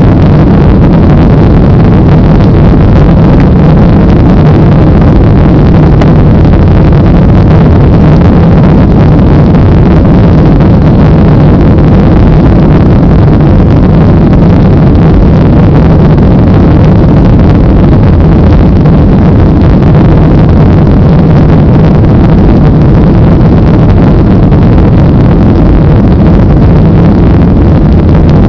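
Cabin noise inside a Boeing 737-800 climbing out after takeoff: a steady, loud, low rumble of its CFM56-7B jet engines and the airflow past the fuselage.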